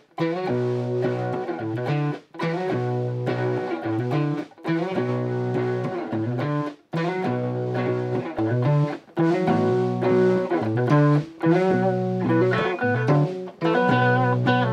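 Electric guitar riff played in repeated phrases of about two seconds, each broken off by a brief gap.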